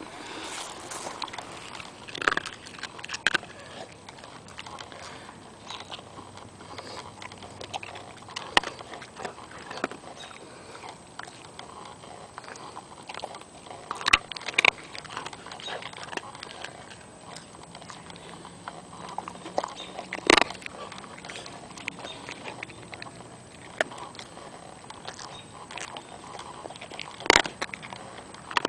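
Border Collie chewing a hard Milk-Bone dog biscuit: irregular crunches and cracks, a few of them louder.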